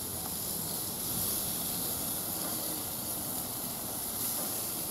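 Raw filet mignon steaks sizzling on a preheated, oiled barbecue grill grate as they start to sear: a steady hiss.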